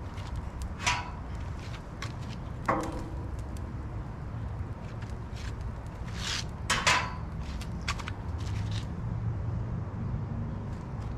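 Metal spatula clinking and scraping against a flat-top griddle, a handful of sharp clacks, over a steady low rumble.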